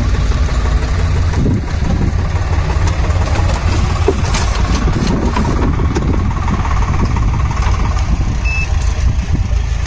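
John Deere tractor's diesel engine idling steadily with a constant low rumble. A single brief beep sounds about eight and a half seconds in.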